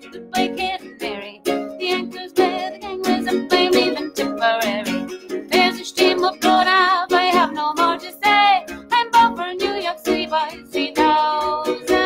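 A woman singing a folk song while accompanying herself on a strummed ukulele.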